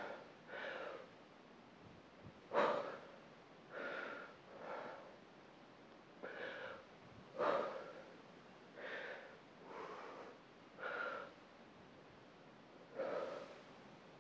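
A woman's audible breathing under exertion while lifting a dumbbell: short, faint breaths about once a second, with a few sharper, louder exhales.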